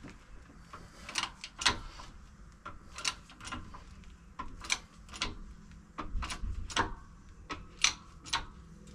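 Bottle-jack shop press being pumped by hand, giving irregular metallic clicks and knocks, about two a second, as it presses a stock gear off a scooter transmission shaft.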